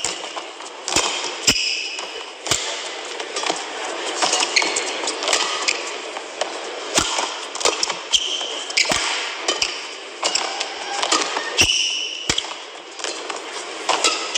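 Badminton rally: sharp racket hits on the shuttlecock at irregular intervals and brief shoe squeaks on the court floor, over steady arena background noise.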